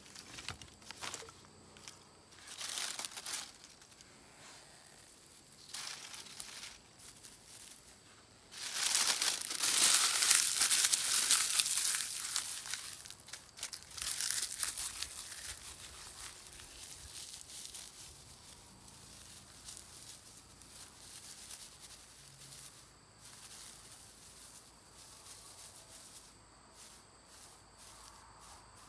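Dry grass crackling and rustling as it is pulled apart and worked by hand into a tinder nest. Short spells of handling, with the loudest, longest stretch of crackling about nine seconds in, then softer rustling.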